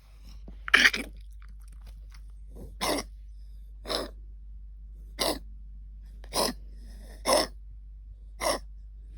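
English cocker spaniel puppy coughing: seven short coughs, about one a second, the first the loudest. It is the cough of kennel cough.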